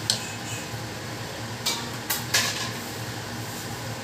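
A metal spoon clinks against a metal cooking pot, once at the start and three times in quick succession about two seconds in, over a steady low hum.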